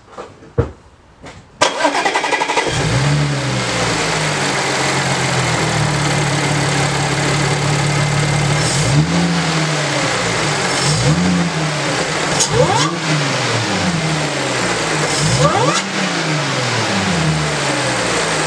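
Audi B8 S4's supercharged 3.0-litre V6 starting about a second and a half in, on its first start with a new aftermarket cold-air intake, and settling into an idle. In the second half it is revved in repeated short blips, each with a whine that rises and falls with the revs.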